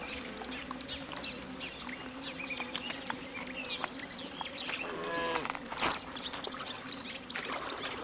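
Birds chirping in many short, high calls over lake water lapping and trickling among stones, with a faint steady low hum underneath.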